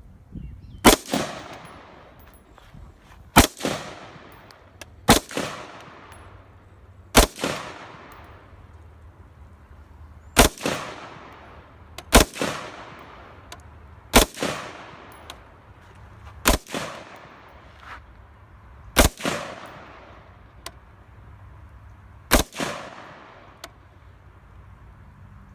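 Palmetto State Armory Freedom AR-15 carbine firing slow, deliberate single shots, about ten in all, two to three seconds apart. Each sharp report is followed by a fading echo.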